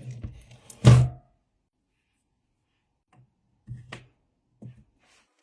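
A single loud knock about a second in, then a few light knocks later on: hard parts being handled and set down while a cell is being swapped in a lithium battery pack.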